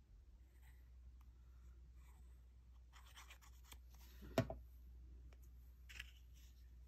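Faint rustling and scraping of paper cards being handled on a craft mat, with one sharp knock about four and a half seconds in as a plastic glue bottle is set down on the table.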